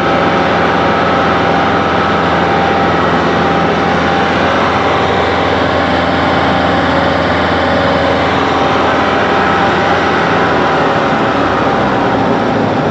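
Concrete line pump's engine running steadily at a constant, loud drone. The pump is struggling to push a mix that has too much rock and is separating.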